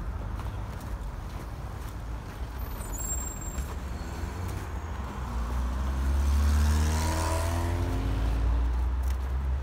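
A large motor vehicle passes close by on the road. Its engine grows louder through the first half and is loudest about two-thirds of the way in, over a steady low rumble.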